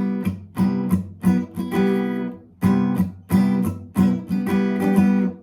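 Acoustic guitar strumming a C major 7 chord with short, sharp strokes on the top four strings, about ten strums that each ring and fade before the next.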